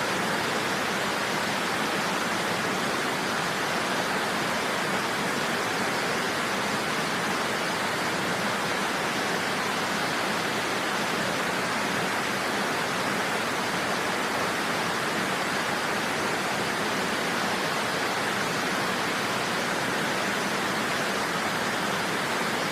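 Waterfall: a steady, unbroken rush of falling water, strongest in the middle range.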